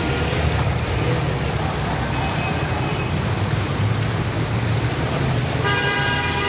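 Cars driving through deep floodwater in heavy rain: a steady low engine rumble under a continuous wash of rain and splashing water. A car horn sounds near the end.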